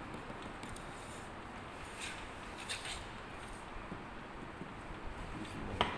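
Steel finishing trowel scraping over the surface of rammed molding sand in a molding box as it is smoothed and levelled: a faint, soft scraping with a few light ticks, and a sharper click near the end.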